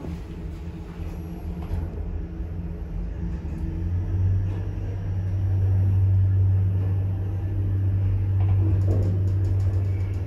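A 2006 Fujitec hydraulic lift travelling, heard from inside the car: a steady low hum from its hydraulic machine that grows louder about four seconds in.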